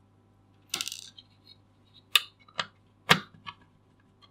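Small metallic clicks and clinks of a Phillips screwdriver and tiny screws against the spinning wheel's sheet-metal case as a circuit board is unscrewed and lifted out. A short scrape comes about a second in, followed by several sharp clicks.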